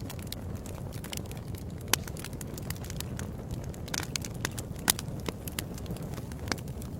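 Wood fire burning in a fireplace: a steady low rumble of flames with frequent sharp crackles and pops, the two loudest about two and five seconds in.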